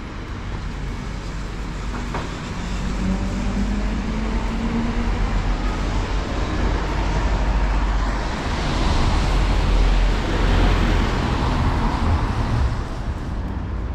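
City road traffic on a wet street: cars and double-decker buses running, with a steady low rumble. A car passing close swells into tyre hiss about nine to twelve seconds in.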